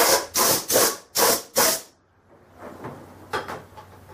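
Compressed-air blow gun fired in about five short hissing blasts, cleaning the deck of the cylinder head before it goes on the engine, followed by a few light knocks.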